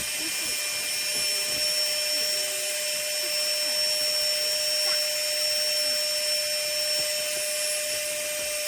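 Steady high-pitched drone of a summer cicada chorus, unchanging, with a steady low hum underneath.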